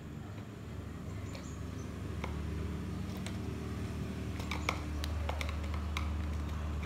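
Screwdriver prying at the plastic housing of a car power window switch held in the door trim by snap latches: scattered small plastic clicks and ticks, several close together in the middle, over a steady low hum.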